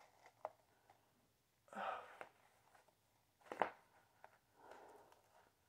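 Gloved fingers rubbing and picking at the rubber-cemented edge of a thin film face mask at the neck: soft rustling, a short scuffing burst about two seconds in, a sharp click past the middle and another softer rustle near the end.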